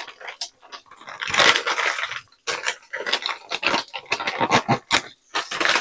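Handling noise at a kitchen counter: a burst of rustling about a second in, then a string of irregular short clicks, knocks and crinkles.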